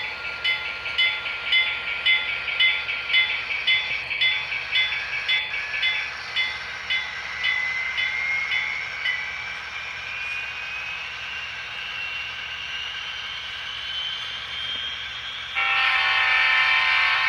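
A model gas-turbine locomotive's DCC sound decoder: the locomotive bell rings about twice a second and fades out, while the turbine whine rises steadily in pitch as the locomotive picks up speed. Near the end the horn blows one long, loud blast.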